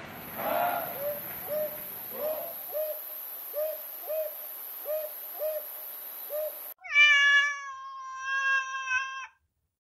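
A tortoiseshell cat gives a long, drawn-out meow that swells twice and lasts a couple of seconds. Before it, a run of short hooting calls repeats about twice a second over faint background noise and then cuts off suddenly.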